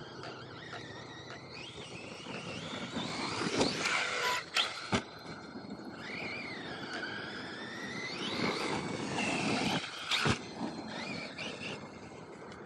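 Radio-controlled monster truck driving over dirt: its motor whines up and down in pitch as the throttle is worked, over tyre noise. There are a few sharp knocks, about four and five seconds in and again near ten seconds, as it lands or bounces.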